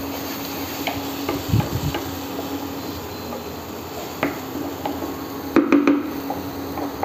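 Wooden spatula stirring and scraping masala paste frying in oil in a frying pan, with light knocks of the spatula against the pan and a louder cluster of knocks about five and a half seconds in. A faint sizzle and the steady hum of the induction cooktop run underneath; the masala is being roasted until the oil separates.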